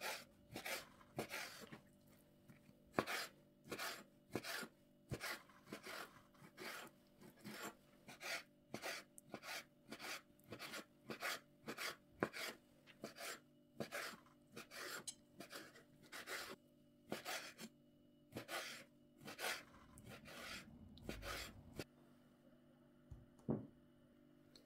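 Knife chopping food on a cutting board in a steady series of strokes, about one and a half a second. The strokes stop near the end, with one last stroke shortly after.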